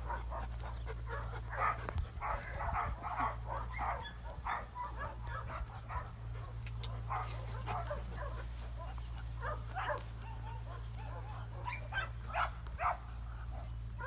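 A dog barking in clusters of short barks, several a second at times, over a steady low rumble.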